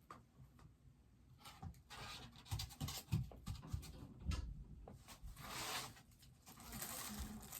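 Packaging being handled: scattered light knocks and taps, then rustling and rubbing of cardboard and plastic wrap, swelling twice in the second half.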